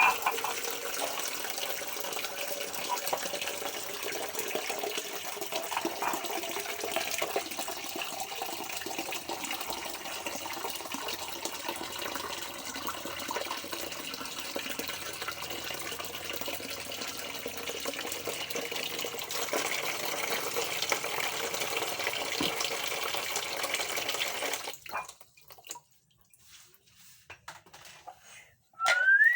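Tap water running steadily into a kitchen sink during hand dishwashing, shut off abruptly near the end, followed by a few faint knocks.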